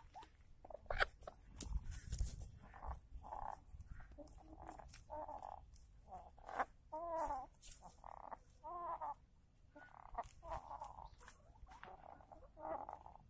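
Laying hens clucking softly in a string of short, croaky calls, some with a wavering pitch, with sharp clicks scattered between them. The hens come from a flock that has started sneezing and snuffling, which the owner takes for a cold.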